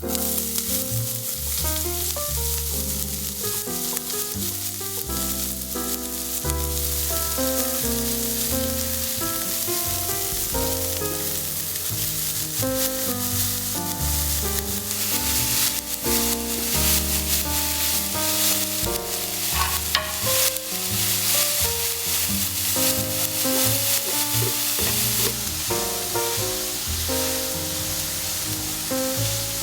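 Food frying in a pan, a steady sizzling hiss that grows stronger about halfway through and eases off near the end, under calm background music with a piano-like melody.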